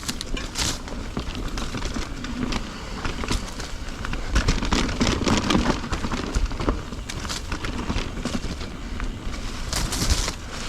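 Mountain bike tyres rolling over a leaf-strewn, rocky singletrack trail, with dense crackling and crunching and sharp clicks and rattles from the bike, over a steady low rumble.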